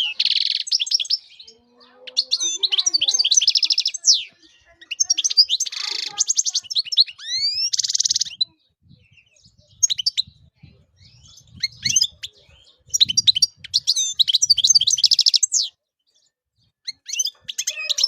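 European goldfinch singing: bursts of quick, high twittering notes mixed with fast buzzy trills, broken by short pauses, the longest near the end.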